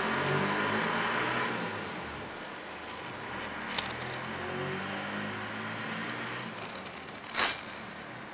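A steady motor hum, like an engine running, a little louder in the first two seconds, with a small click and a short scraping rustle near the end.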